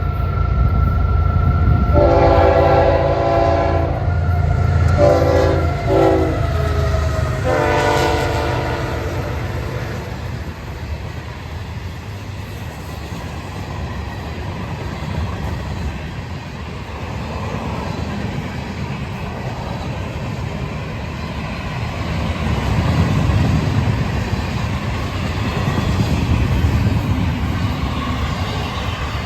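Florida East Coast Railway diesel freight locomotive sounding its multi-chime horn: a long blast, a short broken blast, then another long blast, the closing part of a grade-crossing signal. After the horn stops, the locomotive and its cars keep rumbling past, swelling again near the end.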